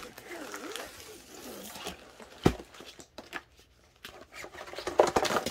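Paper and plastic packaging rustling and crinkling as they are handled, with a few sharp taps of items set down on cardboard, the loudest about two and a half seconds in. A denser burst of rustling comes near the end.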